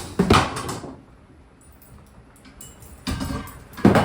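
Ceiling fan being hit with a golf putter: loud clattering crashes, one burst just after the start and two more near the end.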